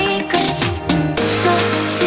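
Electronic background music. The drum beat drops out, and a held bass note comes in about a second in.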